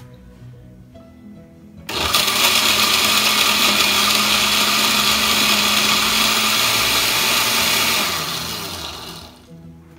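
Oster countertop blender switched on about two seconds in, grinding crab pieces with a little water; it runs steadily for about six seconds, then winds down and stops near the end.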